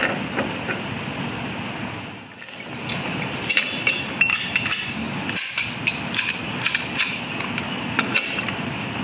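Metal lock parts clicking and clinking as the tongue of a wire-partition slide-door lock is fitted back onto its bar, a run of sharp irregular clicks starting about three seconds in, over a steady background hiss.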